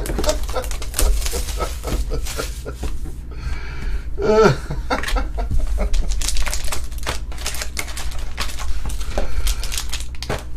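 Rapid crackling, crinkling and clicking of plastic wrapper and cardboard packaging as sealed trading card boxes are opened by hand. A short vocal sound comes in about four and a half seconds in.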